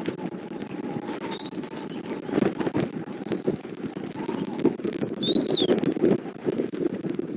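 Strong wind buffeting the nest-cam microphone in uneven gusts. High, thin bird chirps and short gliding whistles come over it.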